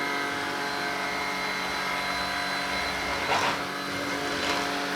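Tineco Pure One X cordless stick vacuum running steadily in auto mode, a motor whine of several steady tones. A short knock comes about three seconds in, with lighter knocks near the end, as the vacuum is set down and tips over.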